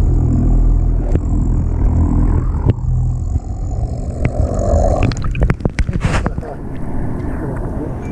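Boat motor running with a low, steady rumble, then a few sharp knocks and a brief clatter about five to six seconds in.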